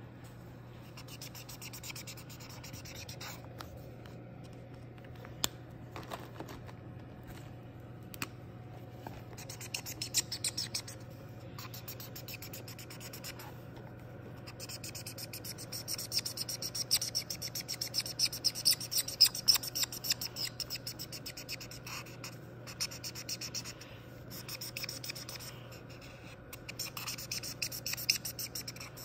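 Felt-tip marker scribbling on a colouring-book page: rapid back-and-forth strokes in several bursts, the longest and loudest in the middle, over a faint steady low hum.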